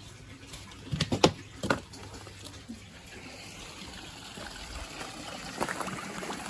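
Water trickling and splashing into a fish tank, with three sharp knocks or splashes about a second in. The flow grows gradually louder toward the end.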